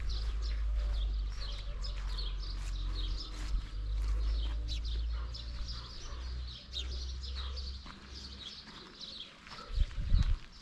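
Small birds chirping with many short, high, repeated notes, over a low wind rumble on the microphone that dies away about eight seconds in. A few low thumps sound about ten seconds in.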